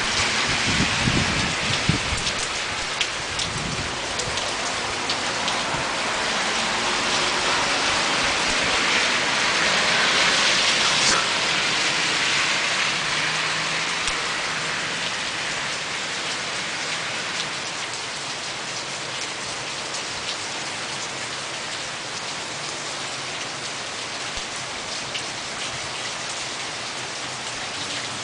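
Heavy rain falling with a steady hiss of drops on surfaces, swelling to its loudest about ten seconds in and easing off through the last third. There is a low rumble in the first couple of seconds.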